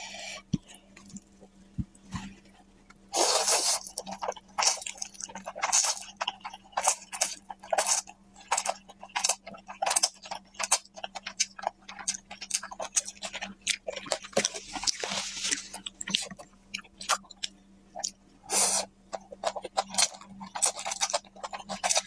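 Close-up slurping and wet chewing of spicy noodles: quick moist smacking clicks throughout, with a few longer slurps of noodle strands, the longest a couple of seconds at about three seconds in and again at about fourteen seconds.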